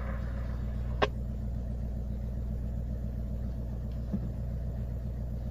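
Off-road vehicle's engine running steadily at low revs, heard from inside the vehicle, with one sharp knock about a second in.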